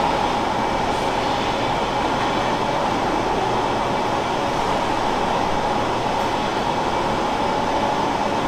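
Steady machinery hiss and hum of a dairy milking parlor, unbroken and even.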